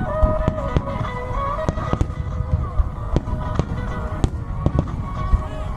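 Fireworks bursting overhead in a rapid, irregular run of bangs and crackles, several a second, over music with held melody notes playing along with the display.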